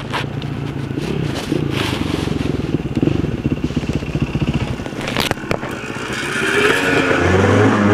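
Dirt bike engines: one running steadily with a fast, even pulsing beat, while another dirt bike climbs a steep dirt hill and grows louder near the end. A sharp knock about five seconds in.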